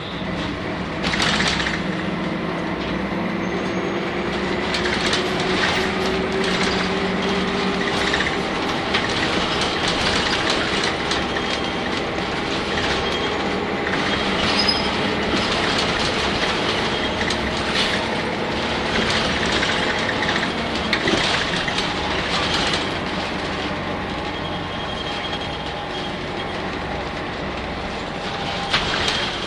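Inside the cabin of a compressed-natural-gas Nissan Diesel UA city bus (PU6 engine, five-speed overdrive gearbox) on the move. The engine tone rises slowly over the first several seconds as the bus pulls, then gives way to steady running noise. Short clicks and rattles from the body and fittings run throughout.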